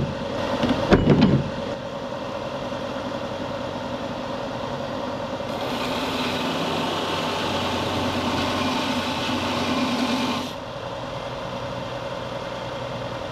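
Benchtop belt-and-disc sander running with a steady hum, with a few knocks in the first second or so. From about five seconds in, a hickory hatchet handle is held to the sanding belt, adding a loud abrasive hiss for about five seconds before it is lifted off and the motor runs on alone.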